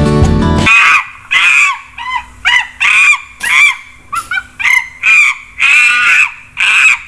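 Guitar music cutting off less than a second in, then a monkey calling: a run of short, high-pitched calls, about two a second.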